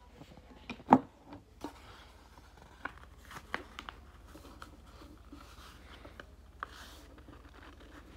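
A sheet of paper being folded and its creases pressed flat by hand on a desk: scattered crackles and taps, the loudest about a second in, over a faint low hum.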